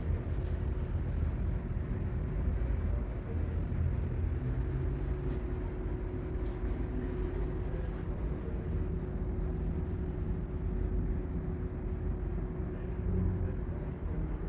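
Steady low rumble with a constant hum running through it, like machinery or traffic noise.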